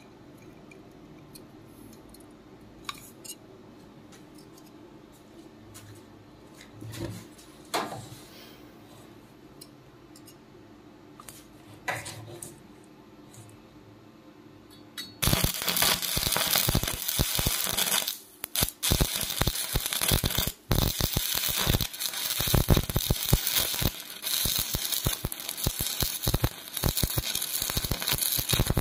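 Stick-welding arc crackling and sputtering as a flux-coated electrode burns along a fillet joint between two steel plates. It starts about halfway through, after a few light clicks. The arc breaks off briefly twice.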